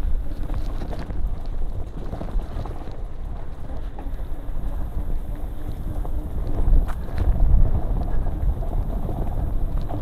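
Mountain bike riding down a rocky dirt singletrack: tyres crunching over dirt and stones and the bike rattling over bumps, with wind rumbling on the microphone.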